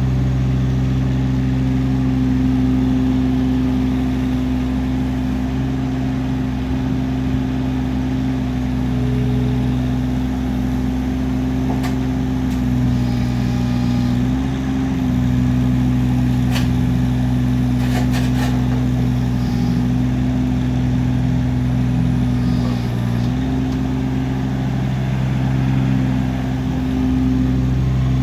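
Kubota KX016-4 mini excavator's three-cylinder diesel engine running steadily while the hydraulics work the boom, arm and bucket and slew the upper body, the engine note dipping and recovering slightly a few times as the hydraulics take load. A few short sharp clicks or clanks come around the middle.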